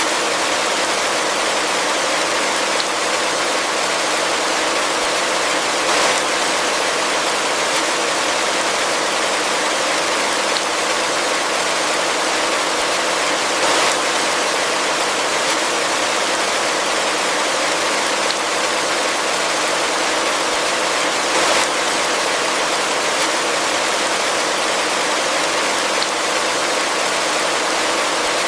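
Heavy rain falling in a steady, even hiss, with a brief louder moment about every eight seconds.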